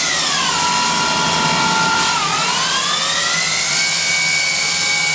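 Emco Maier ET-425 CNC dual-spindle turning center running its program cycle: a high whine from the spindle drive falls in pitch, holds, dips briefly about two seconds in, then climbs and holds steady at a higher pitch as the spindle changes speed, over a steady machine hum.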